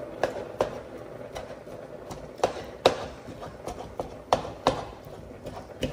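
Plastic spatula knocking and scraping against a nonstick frying pan while stirring chicken and carrots, in about ten sharp, irregular taps.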